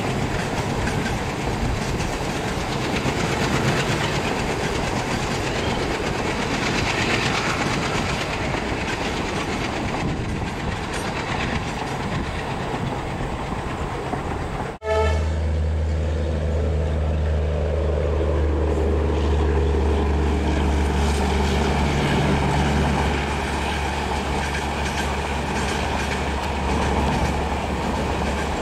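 A passenger train rolling across a high viaduct, a steady rumble with wheel clatter. After an abrupt cut about halfway through, a strong, steady low drone from a diesel locomotive's engine takes over as it hauls its train onto the viaduct.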